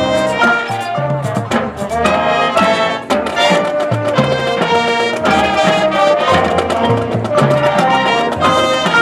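Marching band playing a brass-led piece: trumpets, mellophones and saxophones sounding chords over regular bass drum hits, with front-ensemble mallet percussion.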